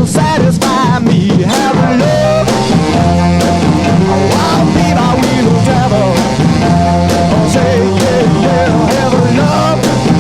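Background rock music with singing and a steady drum beat.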